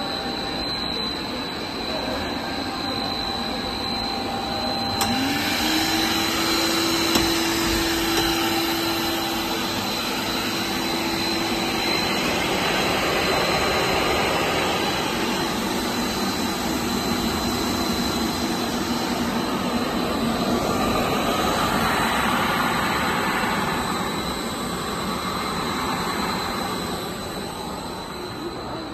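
PE corrugated pipe extrusion line running under test: steady machine noise with a constant high whine. About five seconds in, a lower motor hum slides up in pitch, then holds and fades out after several seconds.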